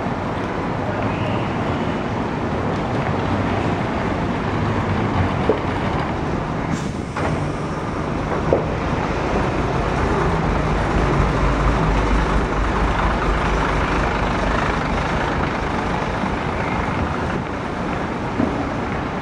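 Steady city street traffic noise, with a deep engine rumble that is strongest from about eight to fifteen seconds in.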